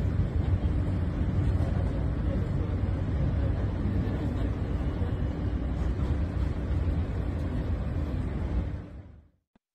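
Steady running noise of a subway train heard from inside the car, heaviest in the low end, fading out near the end.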